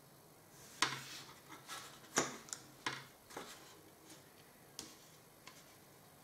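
Light clicks and scrapes of a small hand tool and plastic model parts being worked on a table: about eight irregular sharp ticks, the loudest about a second in, thinning out after the first few seconds.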